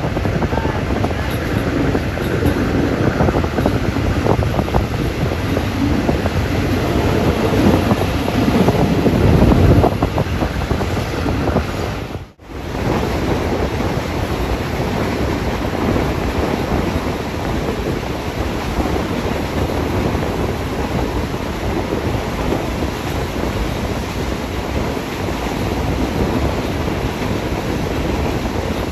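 Passenger train running at speed, heard from an open carriage window: wheels on the rails under heavy wind rushing over the microphone. The rumble is deeper and louder in the first ten seconds, and the sound cuts out for a moment about twelve seconds in.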